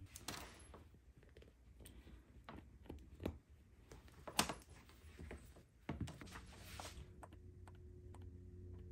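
Faint irregular clicks and rustles of a plastic USB cable being handled: uncoiled, its twist tie pulled off, and its plug pushed into an LED desk mat's connector. The sharpest click comes about halfway through.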